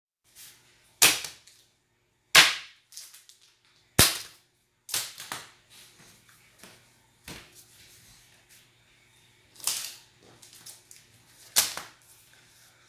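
Sharp slaps and crinkles of foil Pokémon booster packs being put down one by one on a playmat, about seven loud snaps a second or two apart, with softer rustling between them.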